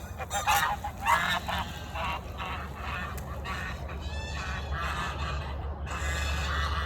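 Domestic geese honking, a burst of loud calls in the first second or two, then fainter scattered honks, over a steady low engine hum.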